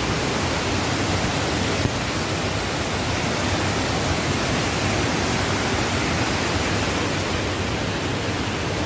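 Steady rushing roar of muddy floodwater pouring over rocks and down a stepped concrete channel in a swollen mountain torrent.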